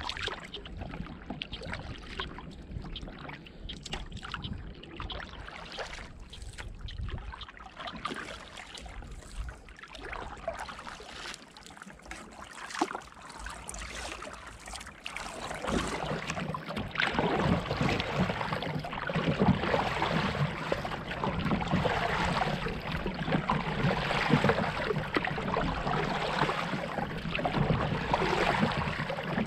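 Frogs, disturbed by the passing paddleboard, sound off in scattered short calls during the quieter first half. About halfway through, hard paddle strokes begin, and the louder splash and rush of water past the stand-up paddleboard runs to the end.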